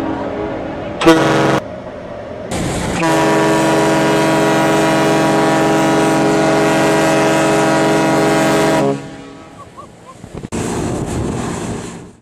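Cruise ship's horn sounding: a short blast about a second in, then one long steady blast of about six seconds that stops and dies away in an echo.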